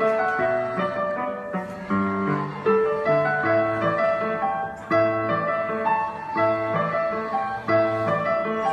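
Digital piano played with both hands: a slow melody in the middle register over held low bass notes and chords, with new notes struck roughly every second.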